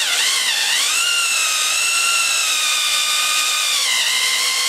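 Electric drill turning a hole saw as it cuts into a block of oak, the motor whining steadily. Its pitch dips briefly about half a second in and drops a little near the end.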